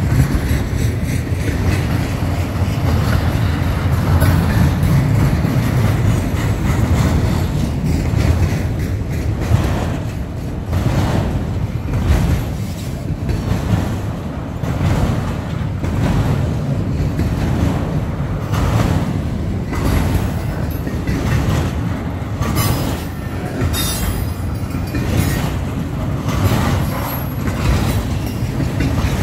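Pan Am Southern freight train of autorack cars passing close by: a steady rumble of steel wheels on the rails with a rhythmic clickety-clack about once a second as the wheel trucks cross rail joints. Brief high-pitched wheel squeals come in about three-quarters of the way through.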